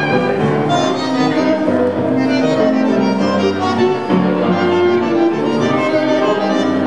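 Live tango trio of piano, bandoneón and violin playing dance music, with sustained violin and bandoneón lines over the piano.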